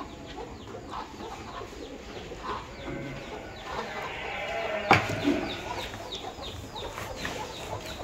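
Birds chirping and clucking over and over in short calls, with one sharp knock about five seconds in.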